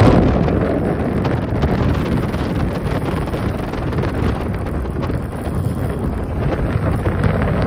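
Wind buffeting the microphone, a steady noisy rush that drowns out other sounds.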